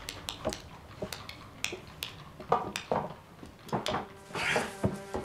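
Scuffle as a limp, bloodied prisoner is grabbed and held: a string of sharp knocks and clicks with rustling, the sharpest about halfway through, and a burst of rustling near the end as soft music comes in.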